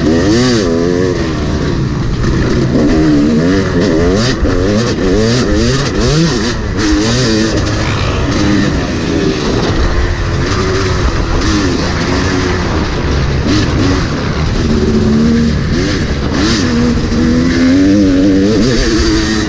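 Yamaha motocross bike engine heard from on board, revving up and down over and over as the rider accelerates, shifts and backs off around a dirt track.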